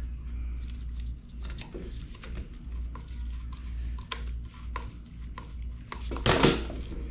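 Scattered light clicks and small metallic rattles of the chainsaw's chain and bar being handled and checked for slack, with a louder scrape about six and a half seconds in, over a steady low hum.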